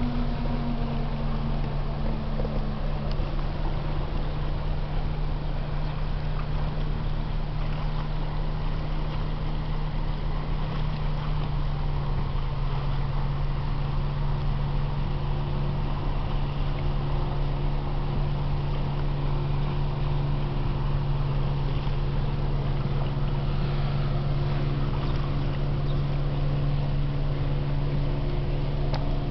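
Steady low drone of a freighter's engines heard across the water: a constant deep hum with fainter steady tones above it.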